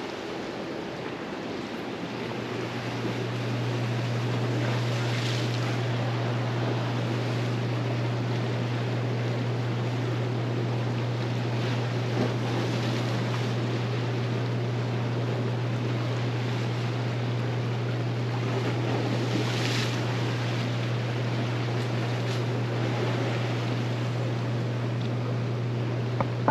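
Ocean waves washing in: a steady rushing hiss that swells about five seconds in and again around twenty seconds, over a steady low hum.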